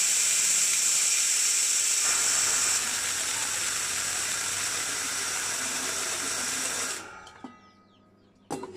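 Small electric grain grinder with a stainless steel bowl running with a steady high hiss as it grinds chicken feed into meal. Its sound shifts about two seconds in and drops a little in level, then the motor is switched off about seven seconds in and winds down, with a knock near the end.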